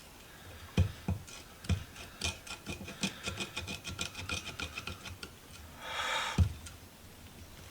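Metal hand-tool work on a vise's jaw-plate screw: a few sharp knocks and a run of quick, evenly spaced ticking clicks lasting about three seconds, with a short hiss near the end.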